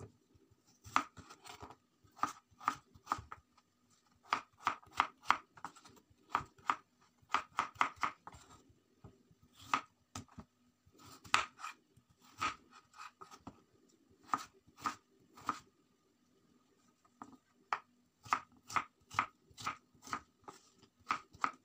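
Kitchen knife dicing raw peeled potatoes on a wooden cutting board: irregular runs of sharp taps as the blade cuts through and strikes the board, with a short pause about two-thirds of the way through.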